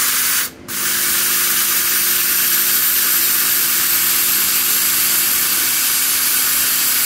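Steam wand of a Schaerer Barista espresso machine frothing milk: a loud, steady hiss that breaks off briefly about half a second in, then carries on, with a faint steady hum from the machine underneath.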